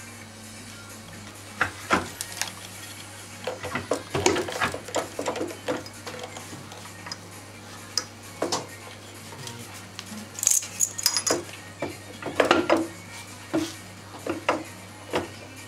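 Metal clinks and knocks as a BMW K100 gearbox is worked into place on the motorcycle's frame. They come irregularly over a steady low hum, busier about four seconds in and again in the last third.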